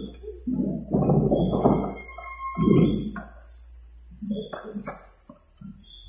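Metal clinking and creaking of a hand-operated strapping tool being worked, its handles pumped to tension and crimp a plastic strap, in irregular bursts.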